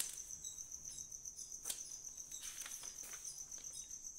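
An insect trilling steadily in the background, a rapid high-pitched pulsing, with a light click a little under halfway through and a few fainter clicks after it.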